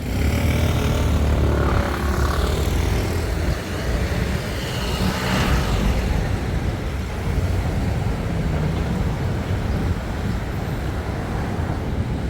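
Busy city street traffic: a heavy vehicle passes close with a low engine rumble whose pitch falls over the first few seconds, and another vehicle swishes past about five seconds in, over a steady traffic drone.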